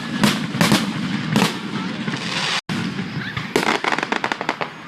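Fireworks going off: several loud bangs in the first second and a half, then, after a brief break, a rapid run of crackling pops.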